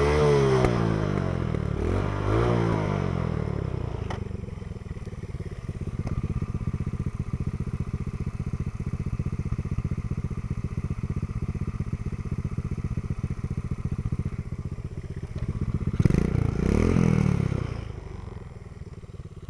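Coolster 3050C ATV engine revving up and down, then running steadily with a rapid even chatter for about twelve seconds, revving briefly again near the end before dropping away.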